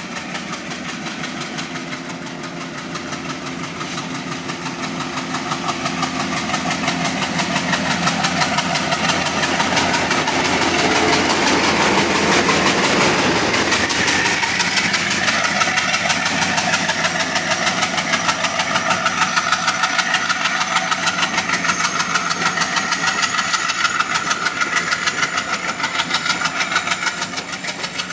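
ALCO WDM3A diesel locomotive's 16-cylinder engine working hard as the train pulls away from the station, growing louder as the locomotive nears and passes about halfway through. Then the coaches roll by with a steady, rhythmic clatter of wheels over the rail joints.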